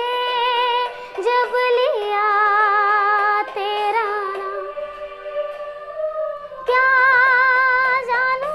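A young girl singing solo, holding long wavering notes with vibrato; her voice drops softer about five seconds in and swells louder again near the end.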